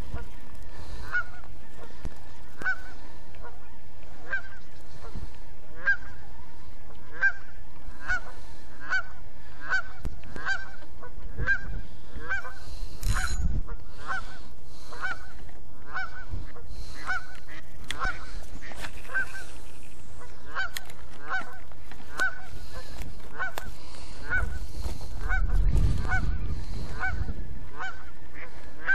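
A goose honking over and over, a bit more than once a second, without letup: the goose is "losing its mind".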